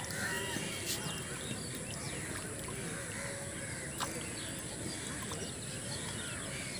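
Rural outdoor ambience: faint scattered bird calls over a steady background hiss, with a single sharp click about four seconds in.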